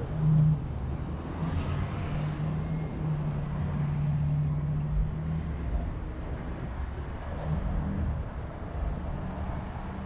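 City street traffic: a steady low rumble of motor vehicles, with one vehicle's engine giving a held low hum through the first half that returns briefly near the end.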